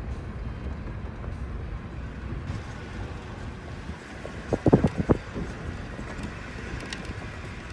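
Truck driving slowly over rough pasture: a steady low engine and tyre rumble with wind noise on the microphone. A short cluster of louder knocks comes about four and a half seconds in.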